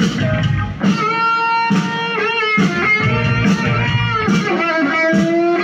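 Live rock band: an electric guitar plays a lead line with string bends and wavering held notes over the rest of the band.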